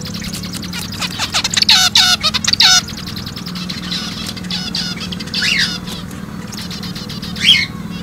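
Zebra finches calling: a loud run of quick repeated chirps from about one to three seconds in, then scattered single calls, with one loud call near the end.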